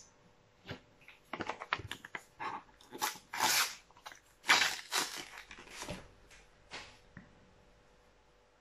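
A Panini sticker packet's wrapper crinkling and being torn open by hand, with the stickers inside shuffled: a string of irregular crackles and rips, the loudest a few seconds in.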